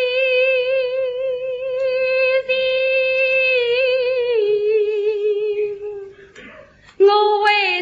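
A voice singing in the drawn-out Suzhou tanci style, holding one long, slightly wavering note that steps down in pitch about four seconds in and fades near six seconds. A new sung note begins about a second later.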